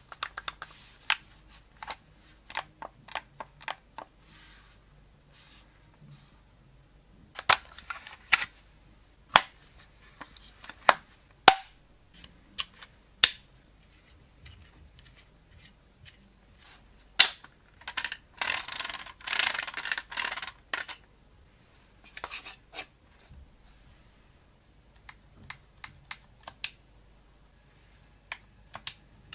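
Hard plastic handling of an Xbox controller and its clip-on phone mount: scattered sharp clicks and snaps as the hinged clip is worked and fitted, with a denser run of clicking and rubbing about two-thirds of the way through.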